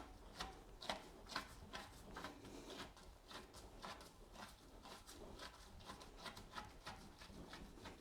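Faint, irregular soft taps and squelches of minced sausage meat being pressed down into a sausage filler's cylinder to force out trapped air.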